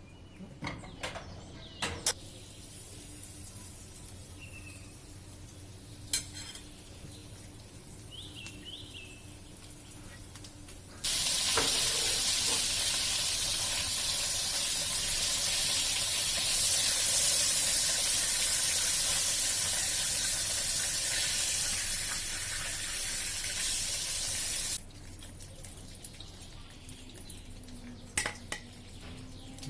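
Chicken sizzling as it fries in hot oil: a loud, steady hiss that starts abruptly about a third of the way in and cuts off abruptly near the end. A few sharp clicks and knocks come before it.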